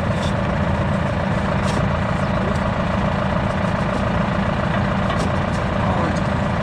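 Tractor engine idling steadily with a deep, even hum, and a few light clicks over it.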